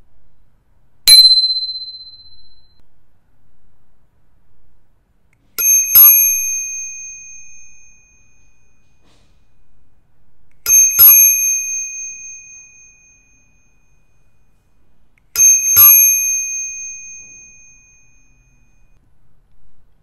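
Bicycle bells rung one at a time: a single ding from one small bell about a second in, then a brass Cateye bicycle bell struck three times about five seconds apart, each a quick double ding that rings out for a couple of seconds. The first ding sounds a single clear note; the Cateye rings with a brighter chord of higher notes.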